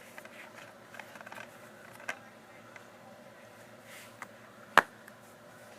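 Handling of a DVD and its plastic case: faint scattered clicks and rustles, then one sharp, loud click a second before the end.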